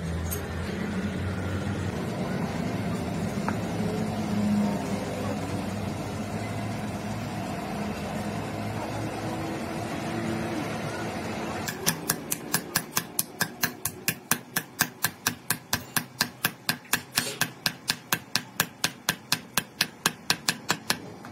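A steady low background rumble, then, about halfway through, rapid even hammer taps, about four a second, on a truck driveshaft's universal joint, driving a bearing cap into the yoke.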